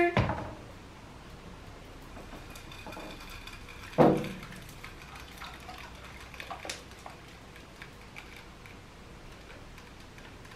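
Creamy coconut flan custard pouring from a blender jar into a glass baking dish: a faint, steady pour with small clicks. One sharp knock rings out about four seconds in.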